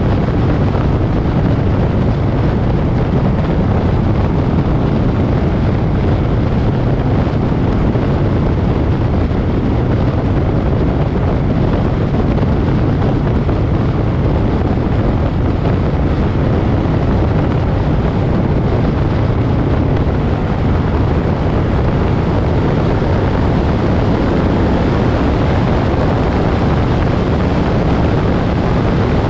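Moto Guzzi Griso's V-twin engine running steadily at cruising speed, heard from on the motorcycle, with wind rushing over the microphone.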